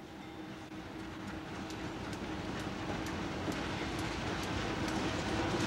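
Conrail GE diesel locomotives running past at a grade crossing, the engine sound growing steadily louder as they come through, with a scatter of sharp wheel clicks over the rails.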